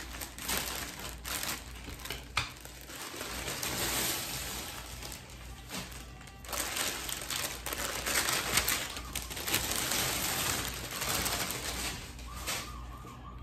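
Packaging crinkling and rustling in uneven surges as a parcel is torn open and a new bag is unwrapped, with a few sharp clicks and crackles.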